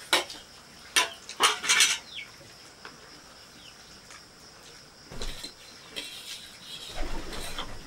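Metal spoons clinking and scraping against steel plates while eating noodles, with a few sharp clinks in the first two seconds and softer ones later.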